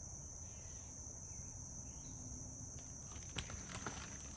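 Insects chirping outdoors in a steady, even high-pitched chorus, with a faint click about three seconds in.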